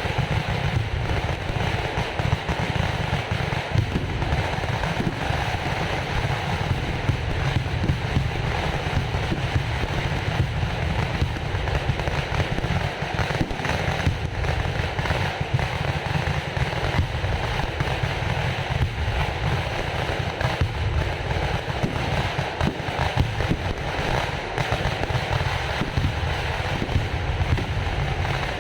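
Fireworks going off: a dense, unbroken crackle of many firecrackers bursting in rapid succession over a steady low rumble.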